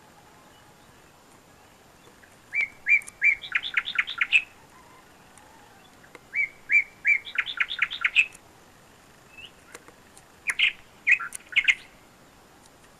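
A songbird singing: a phrase of three or four spaced notes that speeds into a fast run of notes, given twice, then a shorter broken phrase near the end.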